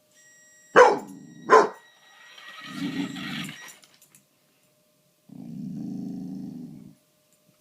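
A dog barks sharply twice, then growls low in two long stretches.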